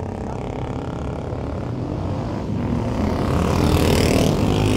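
Several vintage racing motorcycles revving as they power through a bend. The engines grow louder about three seconds in as the bikes come close.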